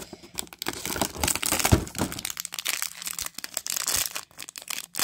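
Shiny plastic Disney Doorables blind-bag wrapper crinkling and rustling as it is handled, with a dull knock about one and a half seconds in.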